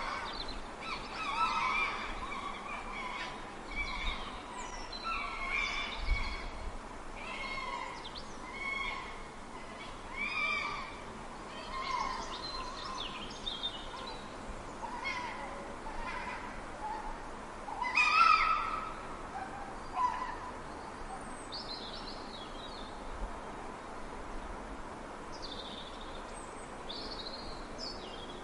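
Fox calling: a run of short, pitched yelps and whines, about one a second, with a louder cry about eighteen seconds in. Fainter, higher chirps follow near the end, over a steady hiss.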